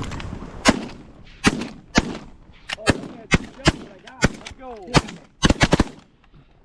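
A volley of shotgun blasts from several duck hunters firing together: about a dozen sharp shots spread over five seconds, some in quick clusters near the end, then the firing stops.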